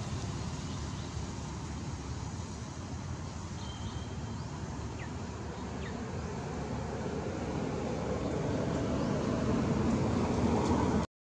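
Steady outdoor background rumble, swelling louder near the end before cutting out abruptly.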